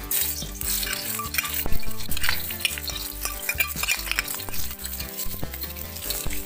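Sliced shallots, red chili and shrimp sizzling in hot oil in a stainless steel wok, stir-fried with a spatula that scrapes against the metal in quick irregular strokes.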